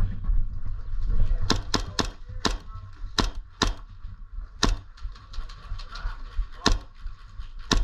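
Airsoft guns firing: about nine sharp, irregularly spaced cracks of single shots, over a steady low rumble.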